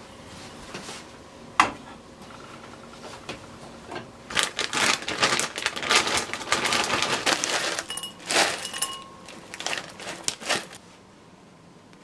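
Zip-top plastic bag of corn kernels crinkling and rustling as it is handled, in rapid bursts from about four seconds in that stop about a second before the end. A single sharp click comes about a second and a half in.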